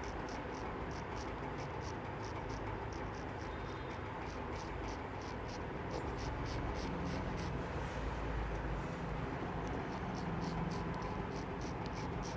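Razor scraping through beard stubble in a run of short, quick strokes, about three a second, over a steady background hum.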